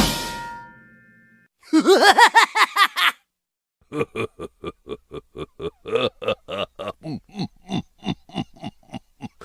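Cartoon laugh sound effect: after the previous musical cue fades out, a quick burst of giggles, then following a short pause a long run of separate short snickers, about three a second.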